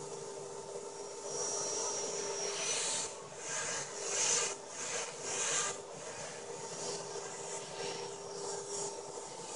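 Compass Warp 360 electric RC helicopter's motor and rotor spun up, making a steady whine while it lifts off and hovers low. Several louder whooshing gusts come and go in the first half.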